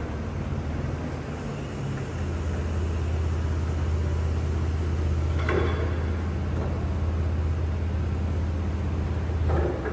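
Combilift C5000SR sideloader running with a steady low engine hum while its mast and forks are worked, with a brief sharper noise about five and a half seconds in and another near the end.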